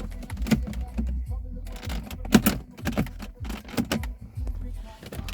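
Irregular plastic clicks and knocks as the gear shifter's trim pieces are handled and pressed back into place in the car's centre console.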